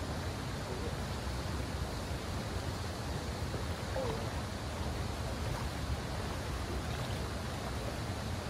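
Steady rush of flowing creek water, an even hiss that does not change.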